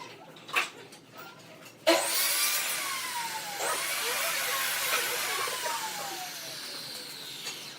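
A turning tool cutting into wood spinning on a lathe. The cut starts suddenly about two seconds in and goes on as a steady hiss for about five seconds, with tones that fall slowly in pitch.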